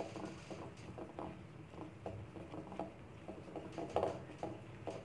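A hand pressing and working a wet chicken drumstick into a glass bowl of dry seasoned flour, making soft, irregular patting and rustling sounds. This is the press-on coating step that builds the crumbly crust for fried chicken.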